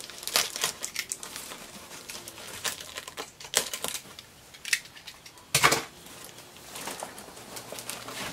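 Utility knife slicing through plastic wrap and tape on an old cardboard box, with plastic crinkling and cardboard scraping in scattered clicks and crackles. A sharper, louder crackle about five and a half seconds in.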